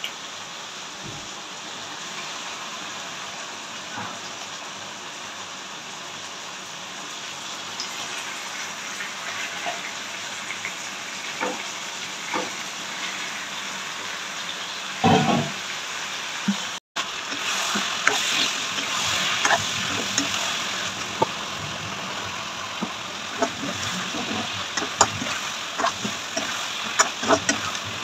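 Spiced oil and masala sizzling in a kadai, stirred with a ladle that clicks and scrapes against the pan. After raw chicken pieces are added, the sizzle is louder, with a brief thump about halfway through and more frequent ladle clicks.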